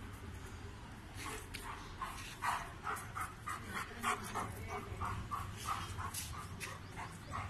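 A Doberman's short, repeated vocal sounds, about two to three a second, starting about a second in.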